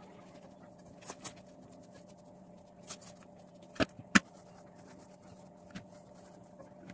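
Scattered short knocks and clinks of an aluminium bowl and metal plate as hands knead, divide and shape soft dough, the loudest a little after four seconds in, over a faint steady hum.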